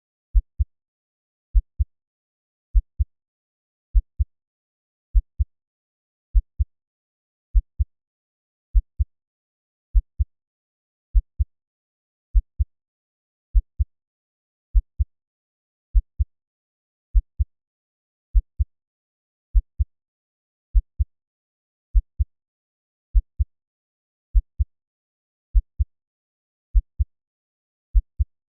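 Slow heartbeat sound: a deep double thump (lub-dub) repeating evenly at 50 beats a minute, with silence between beats.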